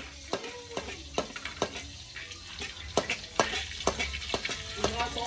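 Stir-frying noodles and greens in an aluminium wok: a metal utensil scrapes and knocks against the pan about twice a second, and the wok rings briefly after some strokes. A sizzle from the frying food under the stirring grows louder about halfway through.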